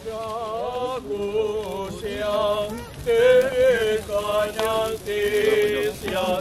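Orthodox church chant: voices singing a sustained, melismatic liturgical melody in phrases of a second or two.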